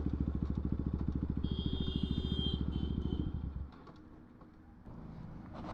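Bajaj Pulsar NS200 single-cylinder engine ticking over through an aftermarket Akrapovic exhaust with an even, rapid pulse, then cut off a little over halfway through. A brief high-pitched whine sounds over it just before the middle.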